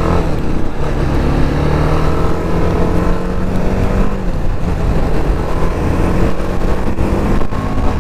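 TVS Apache RR310's single-cylinder engine running at cruising speed, heard from the rider's seat under steady wind rumble on the camera microphone; the engine note eases slightly about four seconds in.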